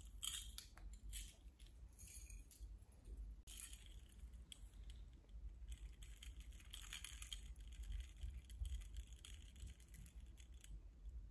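Faint, scattered jingling and clinking of oxidised silver jewellery as a tribal necklace with metal beads and dangling coins is handled and held up, with metal bangles on the wrists chinking along.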